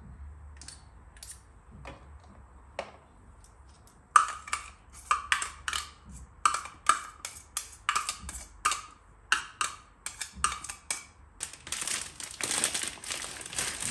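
A small spoon tapping and clinking against a container and the bowl rim in quick taps, about three a second, while seasoning is scooped out and knocked into chicken marinade. About twelve seconds in, a plastic bag crinkles.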